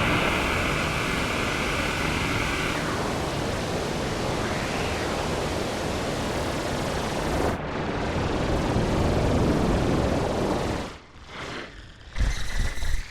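Planetarium granular synthesizer in UVI Falcon playing a dense, noisy wash of sound, with a held high tone that stops about three seconds in. Near the end the texture breaks up into stuttering dropouts and sudden loud hits.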